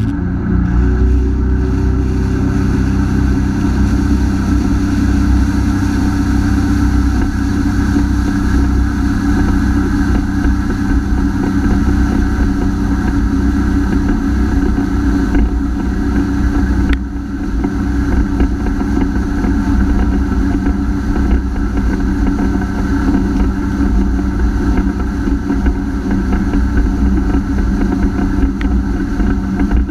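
Honda F-12X AquaTrax jet ski's turbocharged four-cylinder four-stroke engine running steadily under throttle, with its pitch climbing slightly in the first second and a brief drop in level a little past halfway. The ski is down on power at full throttle, a fault first blamed on the turbo and later traced to a clogged fuel filter.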